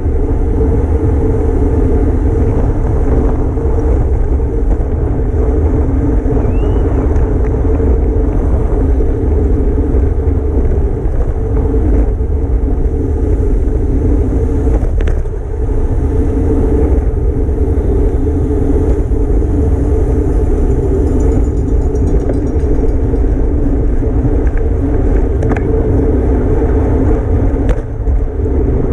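Steady wind rush and rumble on a bike-mounted microphone at racing speed, with tyre and road noise from the bicycle. Two brief clicks stand out, one about midway and one near the end.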